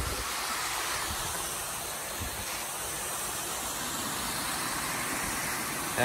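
Steady rushing hiss of a waterfall, water pouring over a rock ledge and down a rocky stream bed, with a few soft low bumps.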